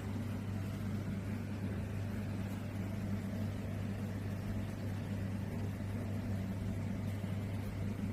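Steady low hum over a faint hiss.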